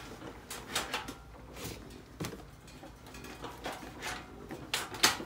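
Irregular sharp clicks and light knocks, about nine over five seconds and loudest near the end, from a hand working the left handlebar controls of a 2005 Honda Foreman 500 ATV.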